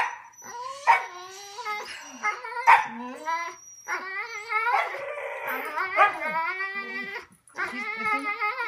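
Siberian husky 'talking': a string of drawn-out yowling, howl-like calls whose pitch bends up and down, a new call starting about every second.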